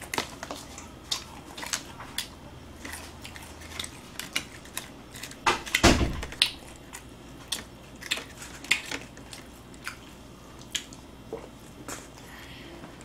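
A small plastic spoon clicking and scraping against small plastic sauce cups in quick, irregular taps, with some eating sounds. A single louder knock comes about six seconds in.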